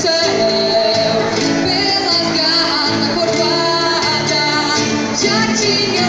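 Woman singing a traditional gaúcho song in long held notes, accompanied by a plucked acoustic guitar, both amplified through a PA speaker.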